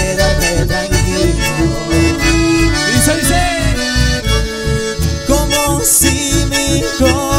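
Live band instrumental break: accordion playing the melody over strummed acoustic guitar and electric bass, with a steady dance beat.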